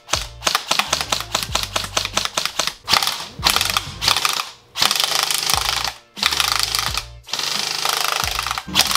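Classic Army EC2 M4 electric airsoft rifle firing long full-auto bursts, a fast even rattle of shots with short breaks between bursts. BBs strike aluminium soda cans.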